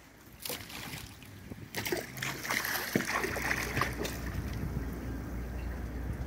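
Large fish swirling and splashing at the water's surface as they strike bait thrown in, a burst of splashes about two seconds in, over a low steady hum.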